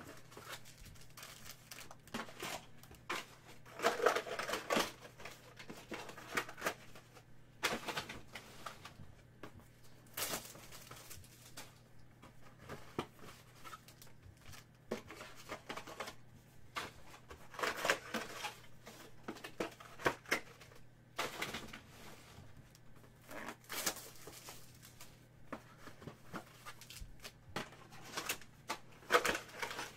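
Trading-card boxes and their packaging handled on a table: scattered clicks, taps and short crinkling, tearing rustles at irregular intervals, over a steady low hum.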